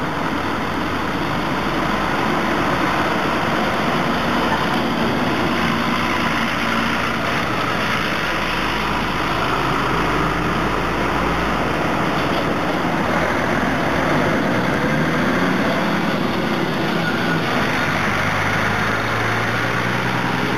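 Street traffic: cars and a heavy lorry driving past with their engines running and tyre noise, and a deep lorry engine hum about halfway through.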